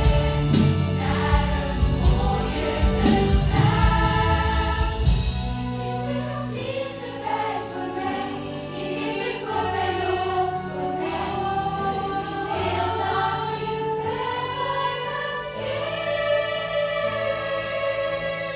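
A youth choir singing a song in full voice with orchestral accompaniment. The band's low end and drums are heaviest for the first five seconds, then drop back to held bass notes under the voices.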